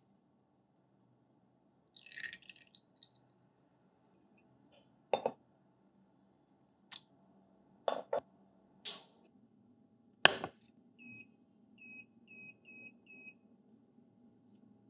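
Kitchen utensils at work on a stainless saucepan: a brief splashy rustle of cream going in, then a string of sharp knocks and taps as a metal jug is set down and pistachio paste is scraped in, the loudest near the middle. Then five short beeps in quick succession from a glass-top hob's touch controls being switched on and turned up.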